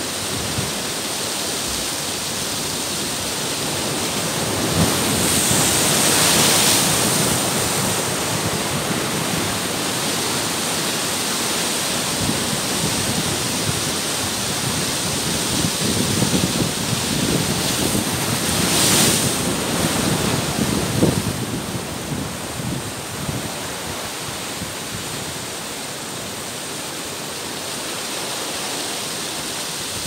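Ocean surf breaking against and washing over rocks: a continuous rush of foaming water that swells into louder surges about six seconds in and again around sixteen to twenty seconds in.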